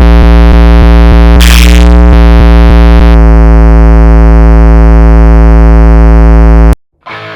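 Very loud electronic tone holding one steady pitch, with a burst of hiss about a second and a half in. It cuts off suddenly near the end, and a short, quieter noisy sound follows.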